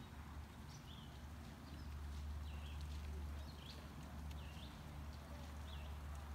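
A bird chirping repeatedly, short high hooked calls about once a second, over a steady low rumble.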